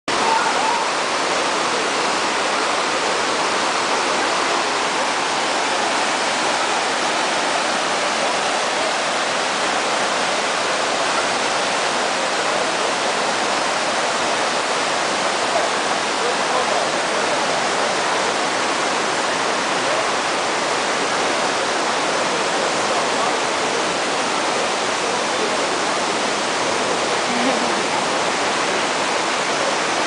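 Waterfall rushing steadily, with water cascading over smooth rock slabs.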